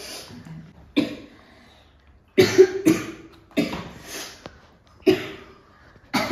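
A woman coughing in several short, sharp fits, about six in all, set off by the strong chili fumes of the freshly opened super-hot chip.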